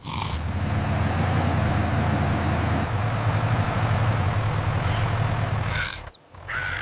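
Tractor engine sound effect running steadily, a low hum that drops away about six seconds in, with a brief higher-pitched sound just after.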